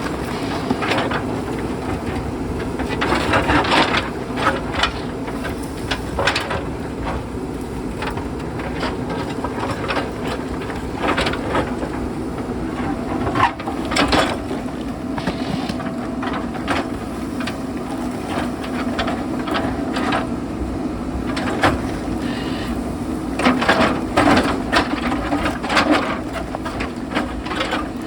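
JCB backhoe loader's diesel engine running steadily under load while its bucket digs out stones, with rocks knocking and clattering against the steel bucket again and again.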